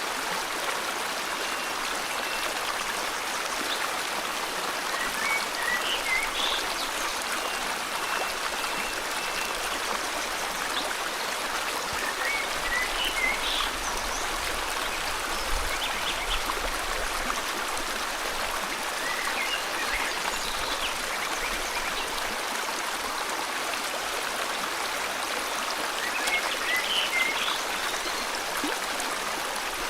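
River water flowing steadily, with short groups of bird chirps over it about every seven seconds.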